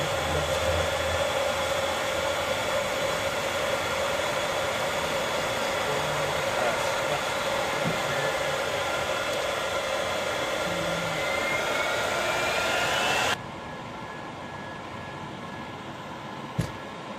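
The E-3 Sentry's four TF33 turbofan jet engines heard from inside the cockpit during the takeoff roll: a steady rushing roar with a steady whine over it. A tone rises about eleven seconds in, then the sound drops sharply in level, and a single click comes near the end.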